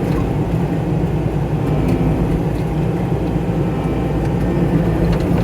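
Skid steer engine running steadily as the machine drives.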